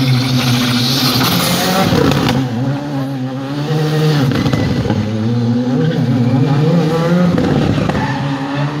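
Rally car engine revving hard as the car drives the stage, its pitch repeatedly climbing and dropping with gear changes and lifts off the throttle.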